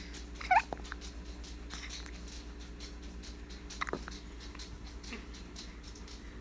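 Baby hiccuping twice, each hic a short squeaky catch of the voice, about three and a half seconds apart; the first is the louder.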